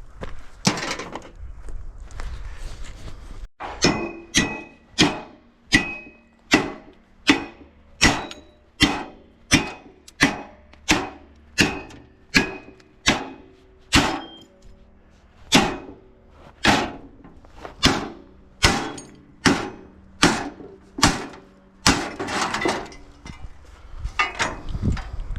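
Hammer blows on metal, struck in a steady rhythm of about one and a half a second, each leaving a short metallic ring. Near the end the blows give way to a quicker, irregular clatter.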